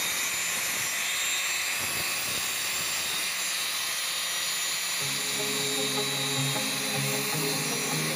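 Background music over a steady high hiss, with held notes coming in about five seconds in.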